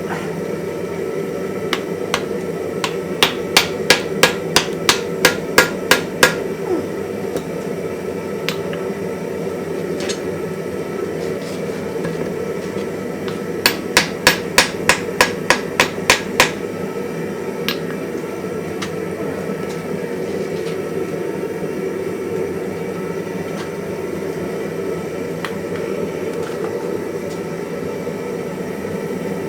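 Hand hammer striking hot iron on an anvil in two quick runs of about ten blows each, roughly three a second, with a few single blows between, over a steady drone.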